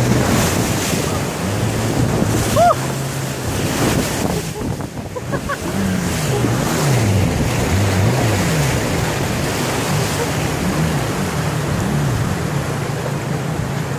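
River rapids rushing loudly around a wooden longboat, with the boat's motor running low underneath, its pitch rising and falling as it works against the current.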